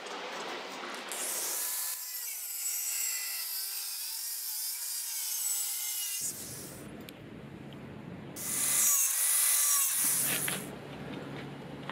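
Angle grinder with an abrasive cut-off disc cutting sheet steel. There are two cuts, a long one from about a second in to about six seconds, and a shorter one near the end. The motor's whine wavers as the disc bites into the metal.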